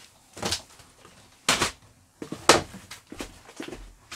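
Small plastic storage boxes being handled: a few separate knocks and clatters, the loudest about two and a half seconds in.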